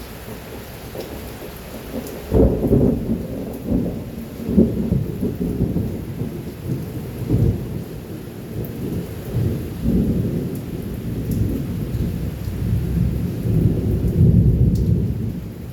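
Thunder rolling over steady rain: a sudden loud peal about two seconds in, then repeated rumbling surges that swell again near the end.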